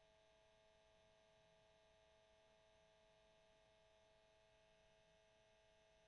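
Faint, steady hum of a cassette tape motor running, a constant whine made of several fixed tones.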